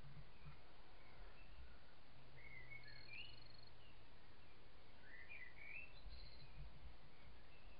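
Faint garden ambience at night: quiet background noise with scattered short, high chirping calls, and a low steady hum from about two to four seconds in.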